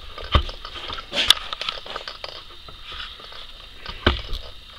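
A few sharp clicks and knocks over low rustling: handling noise of a camera being carried by hand.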